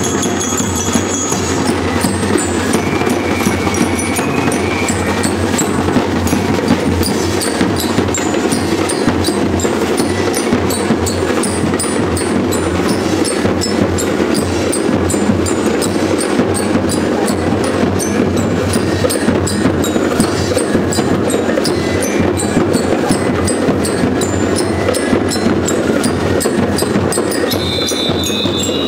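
A school band-and-lyre corps playing: steady, fast drumming with the ringing notes of bell lyres, the music going on without a break.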